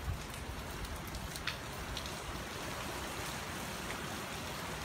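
Steady rain from Hurricane Irma, with a few louder drops ticking now and then.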